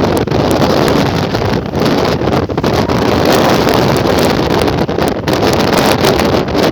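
Strong wind buffeting the microphone, a loud dense rush with a few brief dips as the gusts ease.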